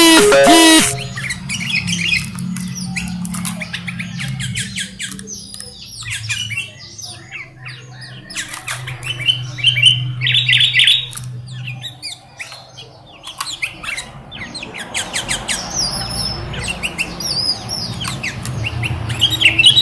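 Sooty-headed bulbuls (kutilang) chirping and calling in many quick short notes, with one loud harsh squawk right at the start.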